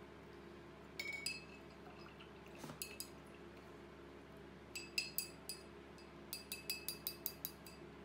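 Paintbrush being rinsed in a glass water jar, its ferrule clinking against the glass: scattered clinks, then a quick run of about seven in a row near the end.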